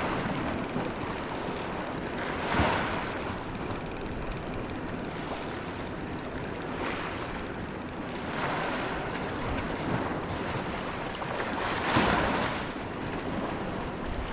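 Wind rushing over the microphone with sea water washing, a steady hiss that swells louder about two and a half seconds in and again near twelve seconds.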